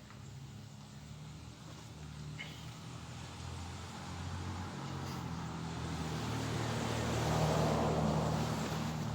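A motor vehicle passing by: a low engine hum and tyre noise build steadily, peak about seven to eight seconds in, and begin to fade.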